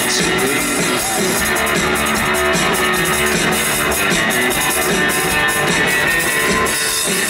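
Live rock band music: electric guitar played over a drum kit, loud and steady, heard from the audience.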